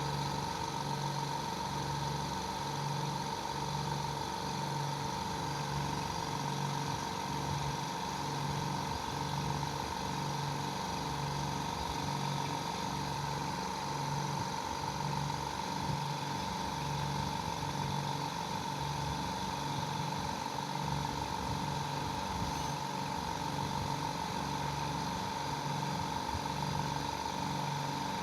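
A 2 HP oil-free air compressor running steadily: a constant high whine over a low, pulsing drone.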